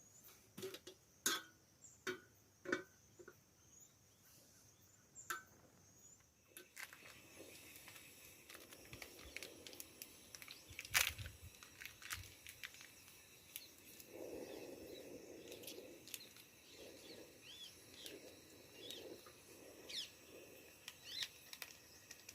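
A string of sharp, separate clicks and knocks, then a steady outdoor background hiss with one loud click and, near the end, a few short bird chirps.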